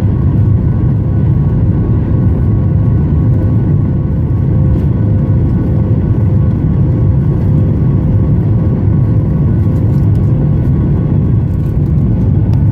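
Boeing 737 MAX 8's CFM LEAP-1B turbofan engines running steadily under power after takeoff: a loud, even rumble with a few steady tones above it.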